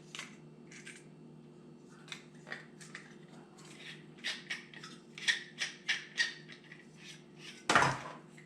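Small clicks and rattles of plastic and metal bird-feeder parts and mounting hardware being handled, with one louder crinkle or knock near the end.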